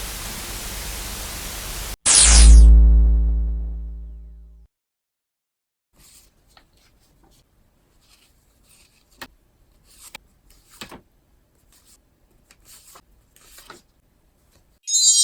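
A steady hiss, cut off about two seconds in by one loud booming impact whose deep rumble dies away over the next two seconds or so. Then only faint scattered clicks, until a bright chime rings out at the very end.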